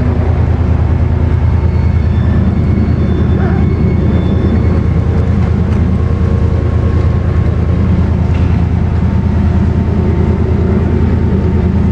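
Diesel train engine running steadily, a loud low drone with a fast, even throb.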